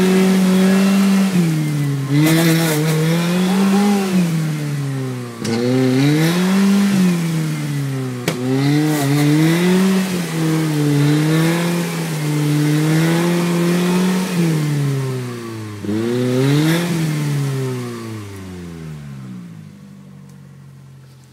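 Off-road 4x4's engine revving hard again and again as it churns through a deep mud rut, the pitch climbing and falling every second or two. Near the end the revs drop away and the engine settles toward idle.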